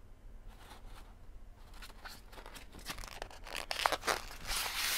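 Packaging crinkling and tearing as it is opened. It is faint at first and grows louder and busier over the last two seconds.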